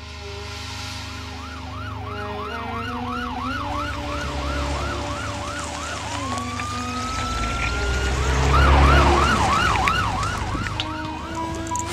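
Police siren in fast yelp mode, about three rising-and-falling sweeps a second, breaking into a long rising wail about six seconds in, then yelping again, over a low rumble that swells near the end.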